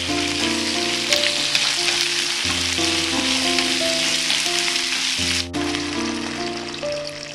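Chayote chunks sizzling in hot oil as they are stir-fried and turned with chopsticks in a pan, over background music. About six seconds in, water is poured into the pan and the sizzle thins out.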